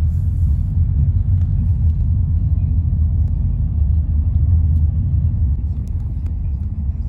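Steady low rumble of a moving road vehicle, heard from inside the cabin.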